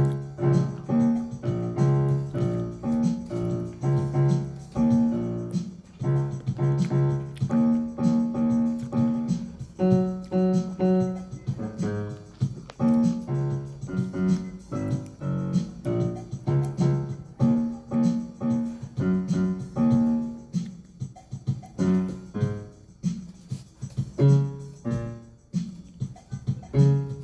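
Piano being played: a tune of struck notes and chords in a steady rhythm, running without a break.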